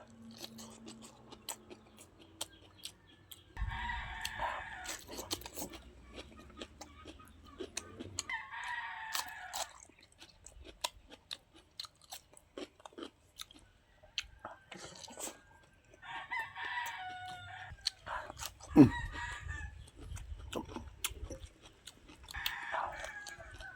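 Close chewing and crunching of vegetables, a run of small wet clicks throughout. Behind it a rooster crows four times, each crow about a second long and a few seconds apart, and there is one sharp knock about two-thirds of the way through.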